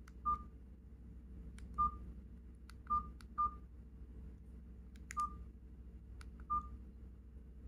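KGTEL i9 feature phone's key tones: six short, identical beeps at uneven intervals as its keypad buttons are pressed, some with a faint click of the key.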